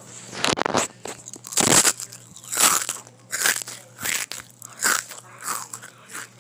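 Crunchy potato chips being bitten and chewed close to the microphone: a run of about eight loud crunches, one every second or less.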